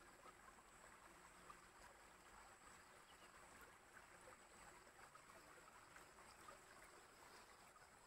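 Faint trickling of a shallow stream running over and between rocks, steady and soft.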